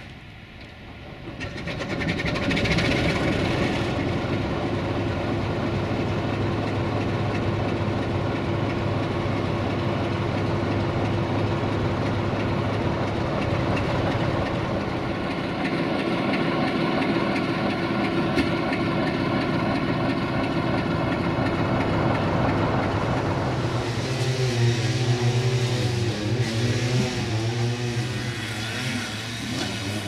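Sulzer 12LDA28 diesel engine of a Romanian 060-DA (LDE2100) locomotive starting up: quiet at first, then about a second and a half in it catches and rises over about a second to a loud, steady run. Near the end a wavering, rising-and-falling tone joins the engine sound.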